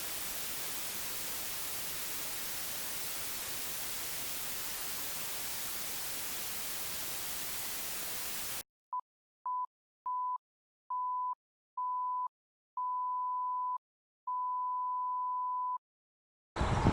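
Steady white-noise hiss like television static, cut off suddenly about eight and a half seconds in, followed by seven pure electronic beeps at one pitch that get longer each time, from a short blip to a tone of about a second and a half.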